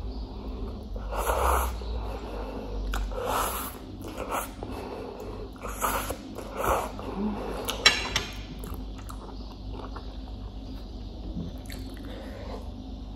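Slurping spicy noodles off chopsticks in about four short sucking pulls, with chewing between them, and a short sharp crackle about eight seconds in.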